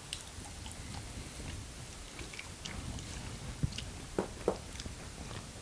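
Close-miked chewing of pizza: soft mouth smacks and small wet clicks, with a few louder smacks a little before the end.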